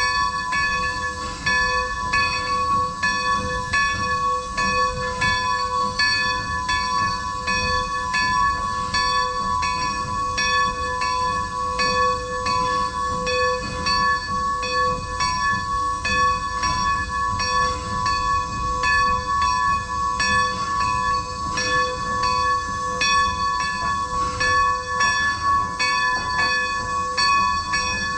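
Steam locomotive's bell rung steadily, stroke after stroke, its tone ringing on between strokes, over the low rumble of the moving engine.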